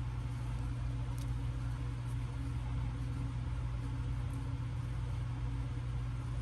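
Steady low mechanical hum with a constant pitch, running unchanged, with a faint tick about a second in.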